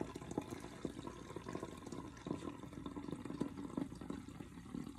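Kombucha pouring from a tilted glass jar through a cloth strainer: a faint, uneven trickle of liquid.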